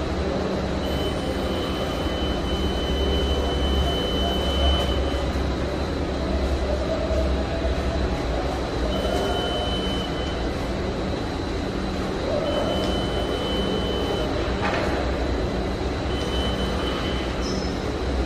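Steady low machinery hum of a construction site. A high, steady tone sounds four times, the first for about four seconds and the others for a second or so.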